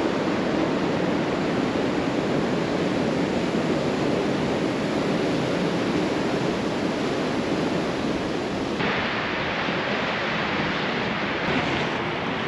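Sea surf breaking and washing up a sandy beach: a steady, dense rush of waves. About nine seconds in it changes abruptly to a thinner, higher hiss.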